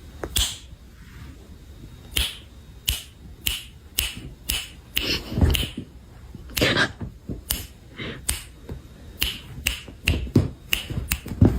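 A quick, irregular series of sharp snapping clicks, about twenty of them, some in quick pairs.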